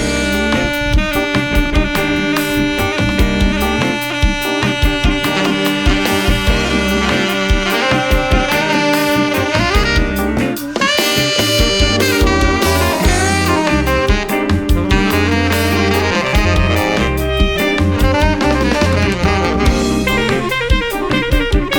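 Instrumental background music with saxophone and brass over a drum kit, in a jazzy style with a steady beat.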